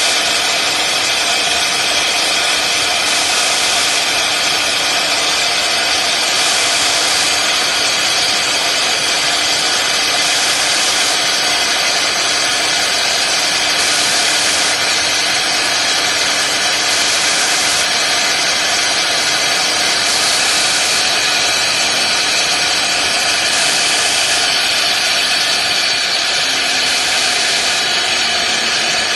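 CNC router spindle running at speed with a steady whine while its small end mill cuts into the workpiece. A high hiss rises and falls about every two seconds.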